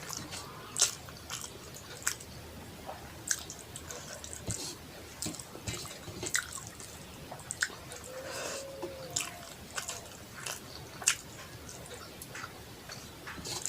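Close-up wet chewing and mouth smacking of someone eating rice and curry, with irregular sharp lip smacks and clicks. A brief low hum comes about eight seconds in.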